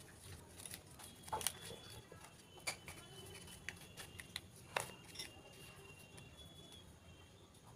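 Banana-leaf parcel being handled and tied with thread: faint crinkling and rustling of the leaf with a few sharp clicks, the loudest about a second and a half in and again past the middle.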